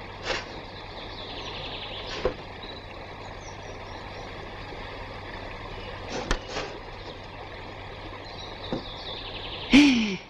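Steady rush of a stream, with a few light knocks and clicks as a wooden case is handled and opened, and faint bird chirps. Just before the end comes a short exclamation from a man, falling in pitch.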